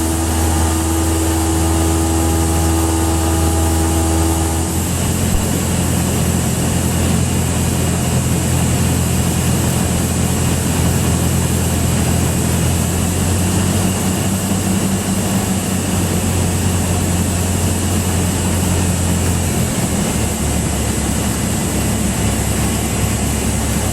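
Cessna 172's four-cylinder piston engine and propeller running steadily, heard from inside the cabin during the climb-out after takeoff. The engine tone shifts about five seconds in and again near the end.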